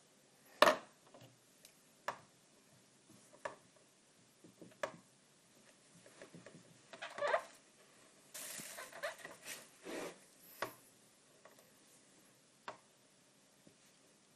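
Dry-erase markers tapping and rubbing on a whiteboard as a face is drawn and a word is written: scattered sharp taps, the loudest about a second in, and a longer run of marker strokes in the middle.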